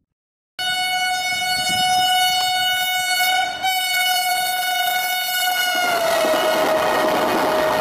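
Train horn sounding one long, steady blast that starts suddenly. About six seconds in its pitch drops slightly and it fades as the rushing noise of the passing train takes over.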